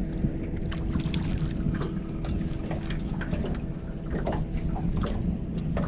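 Boat's outboard motor running at a steady idle, a low rumble with a constant hum. Irregular sharp clicks and taps sound over it from about a second in.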